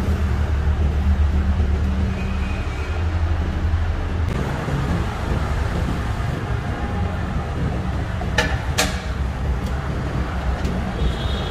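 Steady low mechanical rumble of machinery under a general background din. Two sharp metallic clicks come about eight and a half seconds in, as a heavy electric motor is shifted into place on a compressor tank's base plate.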